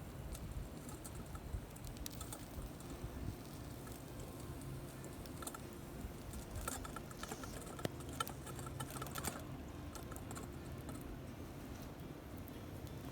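Wood campfire crackling faintly, with scattered small pops and a quick run of ticks about halfway through, over a low rumble.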